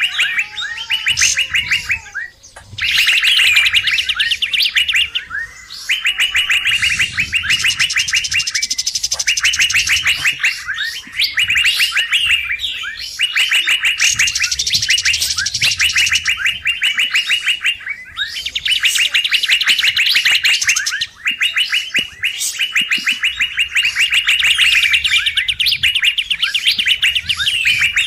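Kapas tembak bulbul bird-lure recording: loud bursts of rapid chattering call notes, about a dozen in a row, each lasting a second or two with short breaks between.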